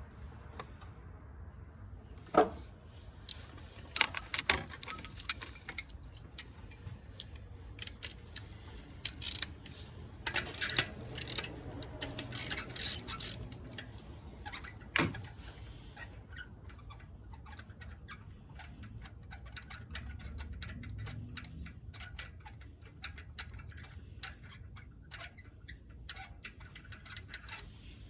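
Hand tools clinking and a socket ratchet clicking in runs of fast ticks, from taking the spark plugs out of a car engine, with a few sharper metal knocks in the first half.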